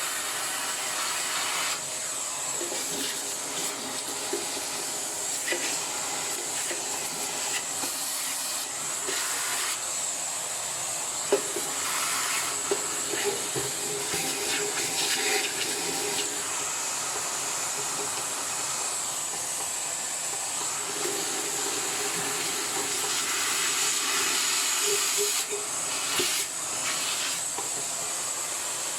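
Vacuum cleaner running steadily, sucking loosened dirt off a ventilation fan's impeller blades, with a high whine over the rush of air and a few light clicks.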